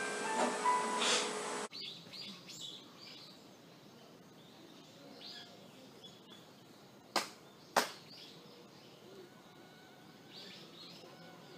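Music and voices cut off about two seconds in, leaving quiet outdoor ambience with faint bird chirps. Near the middle come two sharp hand claps about half a second apart, the double clap of prayer before a Shinto shrine.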